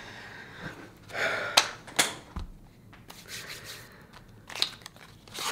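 Rustling and handling noises as a person settles in at a card table: short bursts of crinkly rustle with three sharp clicks, the loudest about a second and a half in.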